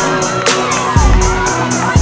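Music with a steady beat: a low thump about once a second under an even, quick ticking, mixed with a crowd cheering and children shouting.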